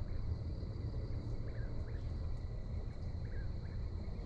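Rural dusk ambience: a steady chorus of crickets and a low rumble, with a few short, distant whippoorwill calls.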